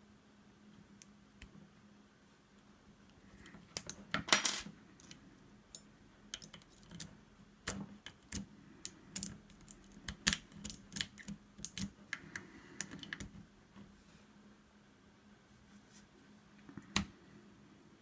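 Lock picks raking and scraping in a double-sided wafer gun lock under a tension wrench: irregular small metallic clicks, with a louder metal clatter about four seconds in and a busy run of clicks through the middle.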